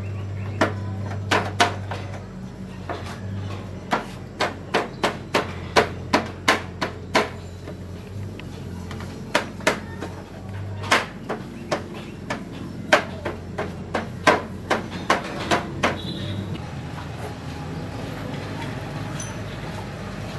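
A run of sharp knocks and clicks, irregular at one to three a second, from hands working on a scooter's rear plastic body panel, stopping about sixteen seconds in. A steady low hum runs underneath through the first half.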